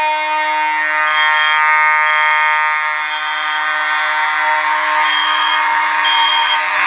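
Fire alarm system sounding after its Fire-Lite BG-12 pull station has been pulled: a steady, harsh horn tone with a higher tone pulsing on and off about once a second. A knock comes near the end.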